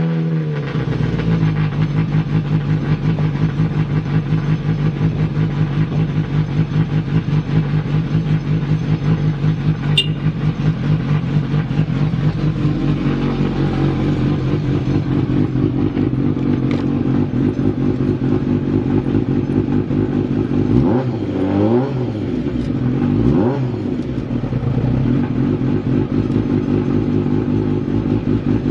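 Kawasaki ZX-12R inline-four motorcycle engine running at a steady idle with no abnormal noise. It is blipped twice about 21 and 23 seconds in, the revs rising and falling back to idle each time, and there is one sharp click about ten seconds in.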